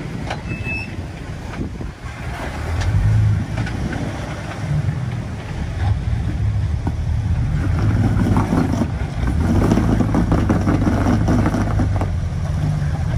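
Lifted off-road Jeep's engine revving under load as it crawls over a rock ledge, swelling about three seconds in and again for a longer push from about eight seconds.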